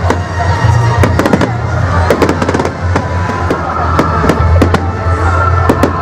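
Aerial firework shells bursting in quick succession: a dense run of sharp bangs and crackles, several each second.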